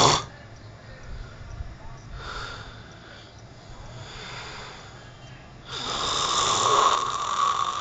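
A sleeping man snoring: a quieter, rasping breath about two seconds in and another about four seconds in, then a loud snore lasting about two seconds that starts near six seconds in.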